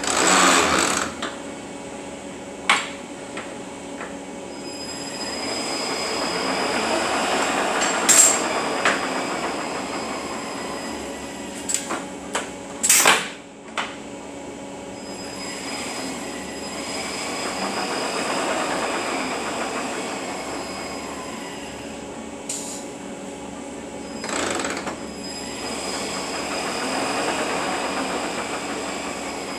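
Eaton Fuller RTLO-20918B 18-speed truck transmission running on a test dyno after repair: a steady mechanical hum with a constant whine that swells and fades in slow waves about every ten seconds. Several sharp clacks come through, the loudest about halfway.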